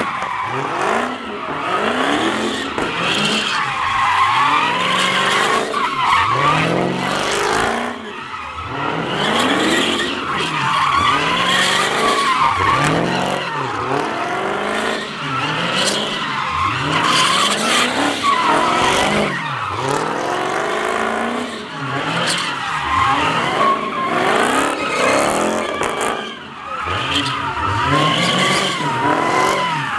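Dodge Charger Hellcat's supercharged V8 revving up and falling back over and over, about every second or two, while the tires screech without let-up as the car spins donuts.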